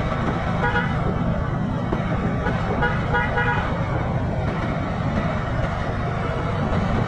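Steady low rumble of a vehicle on the road, with a vehicle horn sounding twice: a short toot about half a second in and a longer one a little after three seconds in.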